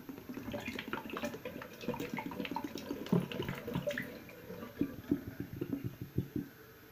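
Water being poured out of a soap dispenser into a sink, splashing and glugging for about four seconds, then thinning to a few separate drips that stop just before the end.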